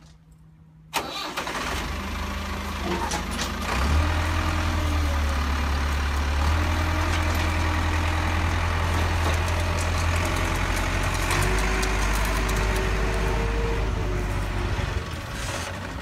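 A vehicle engine starting abruptly about a second in, then running steadily.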